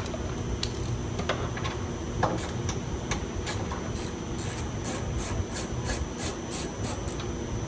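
Socket ratchet clicking as a car door mirror's mounting nut is loosened. Scattered clicks at first, then a steady run of about three clicks a second from about halfway, over a low steady hum.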